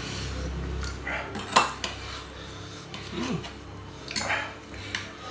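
Metal cutlery clinking and scraping on ceramic dinner plates while eating noodles, with a few sharp clinks, the loudest about one and a half seconds in.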